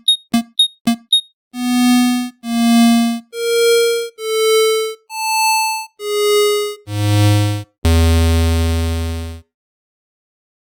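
Synthesized square-wave tones. First come four short blips that slide in pitch. Then seven separate notes of under a second each at different pitches, and finally one longer low note of about a second and a half that cuts off.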